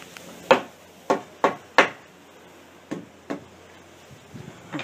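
Hammer blows on wood framing, six sharp strikes: four quick ones in the first two seconds, then two more about a second later.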